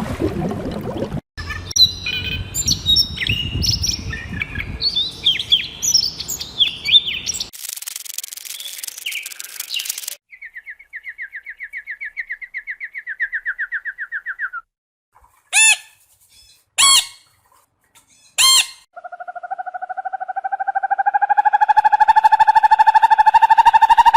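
A string of separate animal recordings cut one after another: several seconds of small birds chirping, a short hiss, a rapid trill that falls slowly in pitch, three short sharp calls, then a long pulsed trill that rises slightly in pitch.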